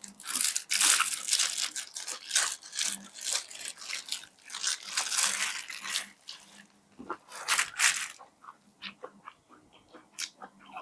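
Corn on the cob being bitten and chewed: a dense run of crunching kernels for about eight seconds, then sparser chewing clicks.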